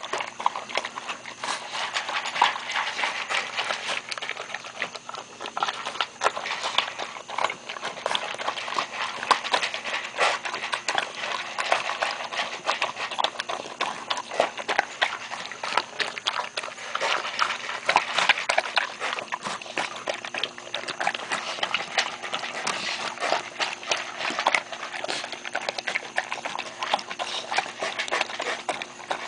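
Maremma sheepdog puppy eating noisily from a plastic tub: a steady, irregular stream of quick crunches, chomps and clicks of teeth and food against the container.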